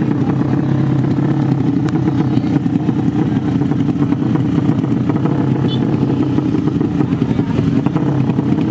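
150 cc sleep-engine drag motorcycle engines running at a steady idle before the launch, with no revving.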